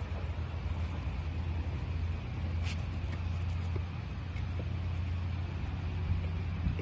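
Steady low outdoor rumble, with a few faint light clicks.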